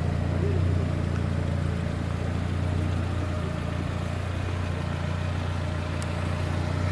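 A motor vehicle's engine running steadily close by, a low even hum.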